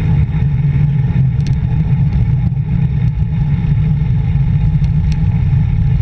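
Wind rumbling on a handlebar-mounted GoPro's microphone as a road bike descends at speed: a loud, steady low rumble with a few faint ticks.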